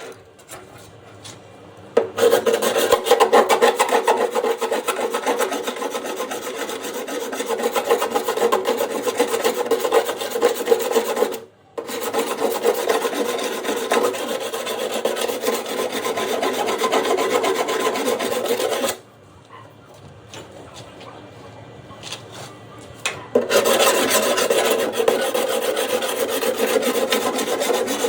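Abrasive rubbing on a car body panel, a dense, rasping sound. It starts about two seconds in, breaks off briefly near the middle, stops for about four seconds two-thirds of the way through, then starts again.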